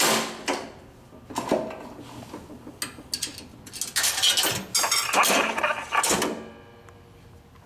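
Metal clanks from the coin mechanism of a cast-iron coin-operated talking scale as a coin is dropped in, then a dense metallic rattling and whirring from the scale's internal works for about two seconds, starting about four seconds in.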